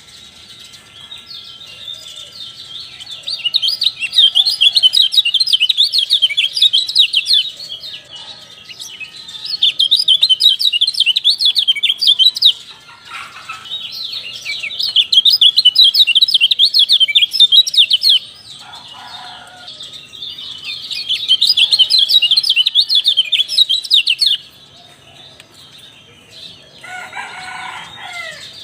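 White-eye (kecial) singing in bursts of rapid, high twittering chatter, each lasting several seconds with short pauses between. This is bait audio meant to provoke caged kecial into song. Near the end a lower, different call is heard.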